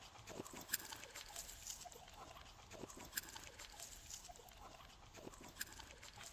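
Glossy slime being squeezed and worked by hand: soft sticky squelching and crackling, with three sharper pops of trapped air at even spacing.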